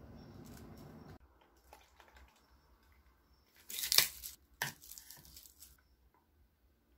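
A small paper soy milk carton shaken in the hands: two short rustling bursts a little past halfway, the first the louder. Before that, a low steady hum cuts off about a second in.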